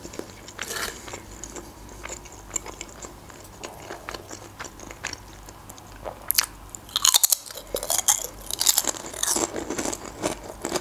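Close-miked mouth sounds of quiet chewing, then a sharp bite into a potato chip about six seconds in, followed by a few seconds of loud crunching as it is chewed.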